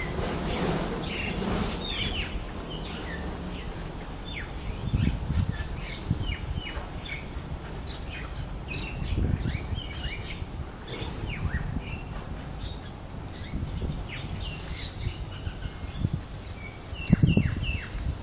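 Small birds chirping in many short, sharp calls, some sweeping downward, in a territorial squabble among several birds. A few low thumps stand out, the loudest near the end.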